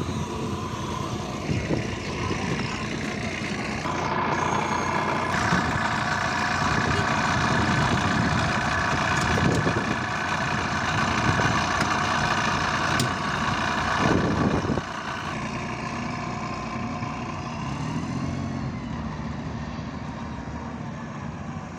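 Rear-mounted diesel engine of a MAZ 103 city bus idling steadily with its engine compartment open. From about four seconds in until about fifteen seconds it is louder, with a steady whine over the engine noise.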